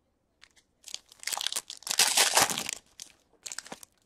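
Trading-card pack wrapper being torn open and crumpled: crackling and crinkling that starts about a second in, is loudest past the middle, and ends with a shorter crackle near the end.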